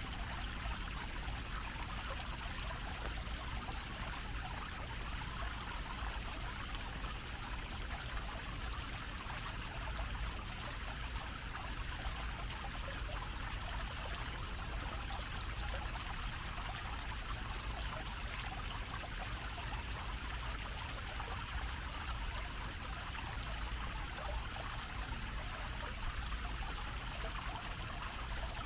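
Fountain jet splashing steadily as water spouts up in a low dome and falls back onto a shallow grated basin, with a steady low rumble underneath.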